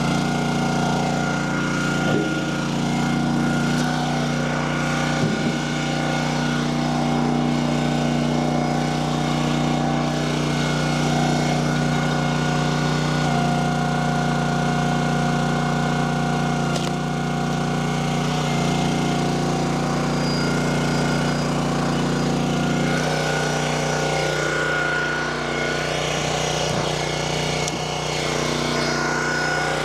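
Small gasoline engine of a log splitter running steadily, its note shifting a few times.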